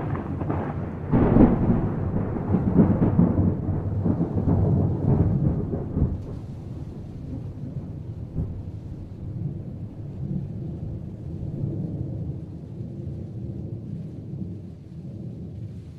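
Thunder rolling after a nearby lightning strike: loud crackling peaks in the first six seconds, then a low rumble that slowly dies away.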